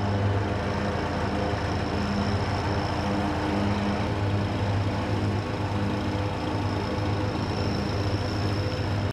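Airport ramp machinery running steadily beside a parked airliner: a low throbbing engine hum under a constant high-pitched whine. It cuts off suddenly at the end.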